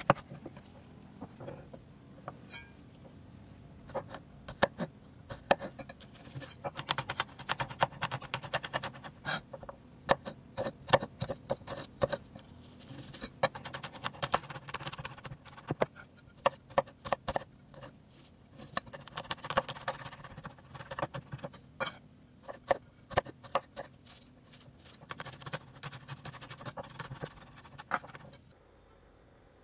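Chef's knife chopping onion and mincing garlic on a wooden end-grain cutting board: quick runs of sharp taps as the blade strikes the board, in irregular bursts, stopping just before the end.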